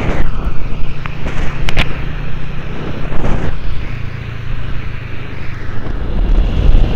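Motorcycle engine running steadily while riding, with wind buffeting the microphone and tyre hiss on a rain-wet road.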